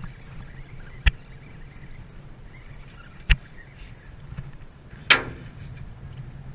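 Steady low hum of the boat's engine under three sharp knocks: one about a second in, one a little past three seconds, and a louder one near five seconds that rings on briefly. They come as a scup on a spinning rod is reeled up from the water and swung toward the rail.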